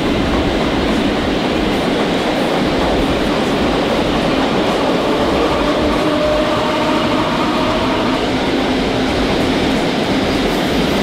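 Heritage passenger trains running side by side at close range: a steady rumble of steel wheels on the rails.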